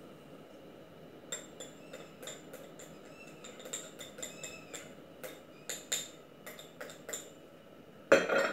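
A wire whisk and scoop clinking and tapping against a stainless steel mixing bowl of flour, in light irregular taps with a ringing edge, then a louder clatter near the end.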